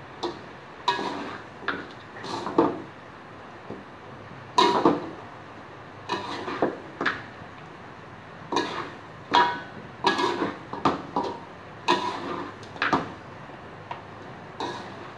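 Metal spatula scraping and clanking against a wok while stir-frying chicken, in irregular strokes, some with a short metallic ring.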